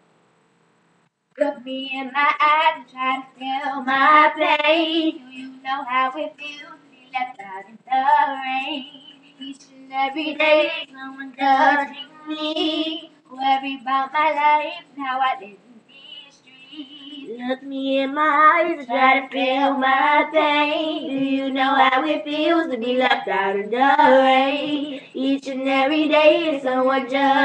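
Two young girls singing a song together without accompaniment, their voices wavering in pitch. The singing starts about a second and a half in, after a brief silence.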